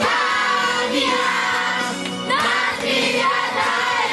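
A group of young people singing a Christian song together, with music.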